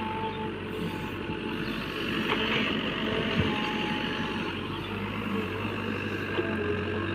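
JCB backhoe loader's diesel engine running steadily while working, with short steady beeping tones now and then and a single sharp knock about three and a half seconds in.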